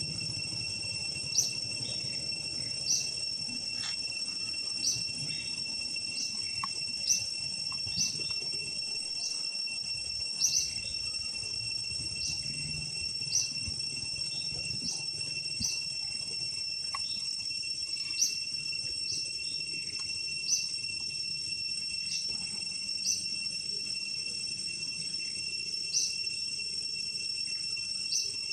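Forest insects: a steady high-pitched drone, with a short sharp chirp repeated about every one and a half to two seconds.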